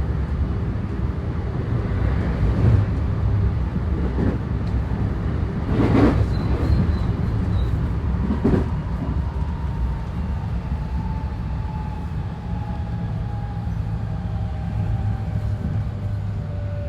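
JR 223 series electric train running: a steady rumble of wheels on rail with two sharp knocks, about six and eight and a half seconds in. In the second half the whine of its Hitachi IGBT-VVVF inverter and traction motors falls slowly in pitch as the train slows.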